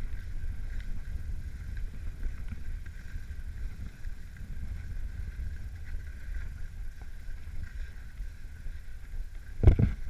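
Wind buffeting a GoPro Hero3's microphone as it moves fast downhill over snow: a fluctuating low rumble with a faint steady hiss above it. One sharp thump comes near the end.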